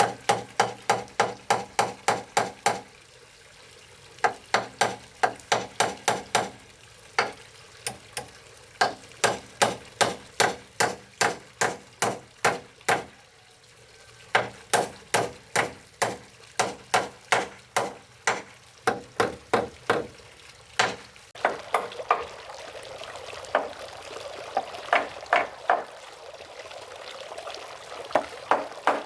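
Hammer driving nails into wood: runs of rapid, ringing blows, about three to four a second, with short pauses between runs. A steady hiss joins about two-thirds of the way through.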